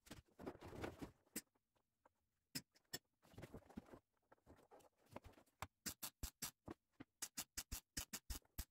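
Faint crackle of a MIG welding arc on thin, rusty sheet steel, laid down in short start-stop bursts. The bursts come irregularly at first, then as a quick, even run of brief tacks about four a second in the second half, stitch-welding a crack in metal that the welder expects to burn through easily.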